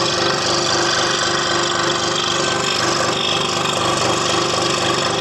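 Scroll saw running steadily with a fast, even buzz as its blade cuts a curve through a wooden jigsaw-puzzle board.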